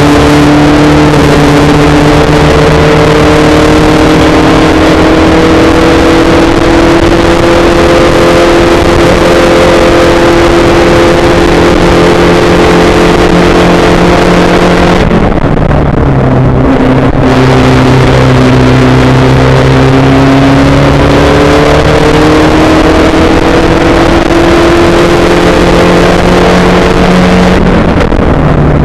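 Spec Racer Ford's engine heard onboard at racing speed, loud and sustained over a heavy rush of noise. Its pitch climbs slowly, drops suddenly about halfway through as the engine eases off, then climbs again, with a smaller dip near the end.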